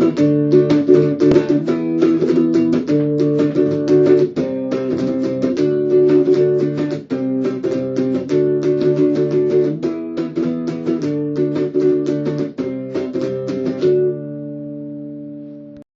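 Outro music of quickly plucked guitar or ukulele chords. It stops abruptly near the end, and the last chord rings on briefly before cutting off.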